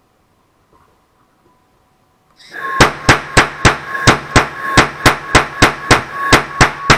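Small rapid-fire propane noise cannon, spark-ignited, with a spiral-wound barrel, firing a burst of sharp bangs at about three a second. The bangs start about three seconds in, after a steady hiss and faint whine of the gas-air feed begin just before them.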